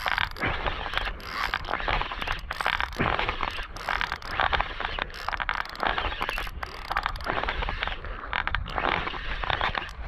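Spinning reel cranked steadily as line is wound in after a strike, its rotor and gears making a continuous scratchy whirr, with wind rumbling on the microphone.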